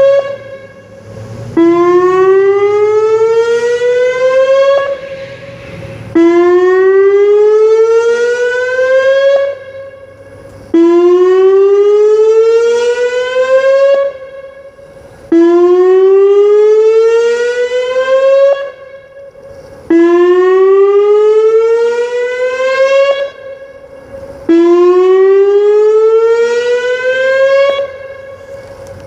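Whelen WPS 2909 electronic outdoor warning siren sounding for its weekly test. Its loud tone rises steadily in pitch for about four seconds, drops back low and climbs again about every four and a half seconds. The sound falls away briefly between sweeps.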